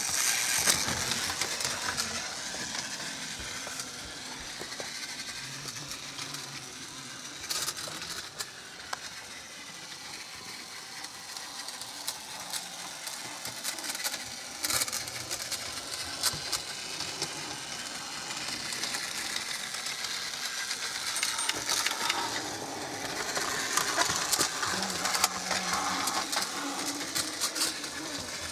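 Battery-powered Plarail toy trains running on blue plastic track: a small motor's steady whir with frequent light clicks and rattles of plastic wheels and cars over the track.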